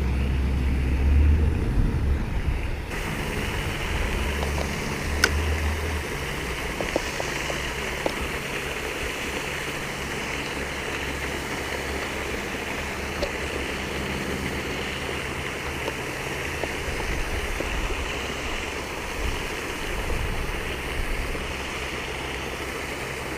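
Wind buffeting the microphone outdoors, with a heavy rumble for the first several seconds that then eases into a steady hiss, and a few faint clicks.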